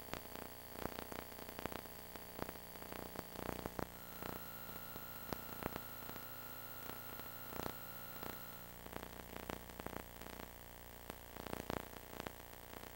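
Faint hiss and hum from a VHS tape's audio track with no programme sound, sprinkled with short clicks and crackles. A faint steady high tone sits over it for a few seconds in the middle.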